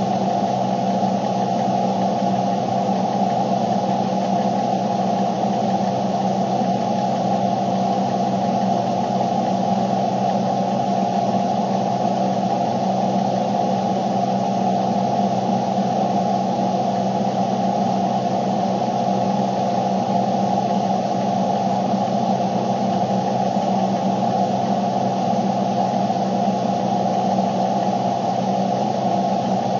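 A loud, steady hum with a hiss over it.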